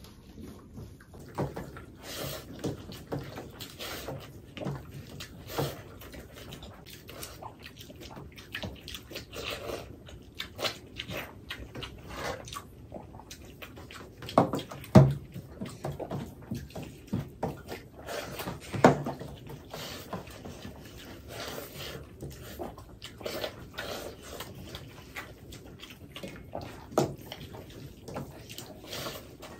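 Two people eating rice and egg curry with their hands from steel plates. There is irregular wet squishing of fingers mixing the rice, chewing and lip smacking, with a few sharper knocks about halfway through and again a few seconds later.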